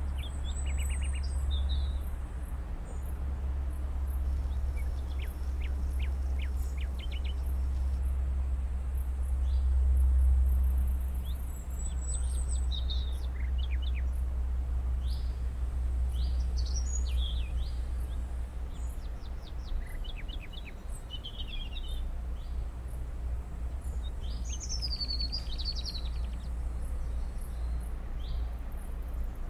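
Small birds chirping and giving short rapid trills on and off, with a few sweeping calls, over a steady low rumble.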